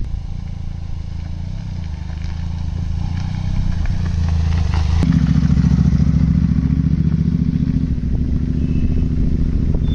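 Benelli TRK 502X's parallel-twin engine running as the motorcycle is ridden off, growing louder, with a change in its note about five seconds in.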